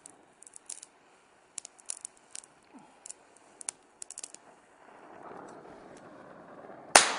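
Faint scattered clicks and crackles, then an oxyacetylene torch flame hissing steadily for about two seconds, ended near the end by a single sharp, loud pop.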